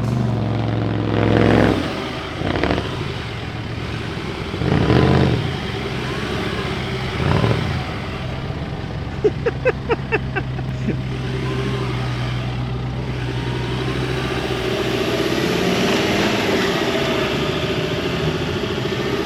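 Off-road 4x4 engines running, revved hard several times in surges that rise and fall, over a steady engine drone. A quick run of about five sharp knocks comes about ten seconds in.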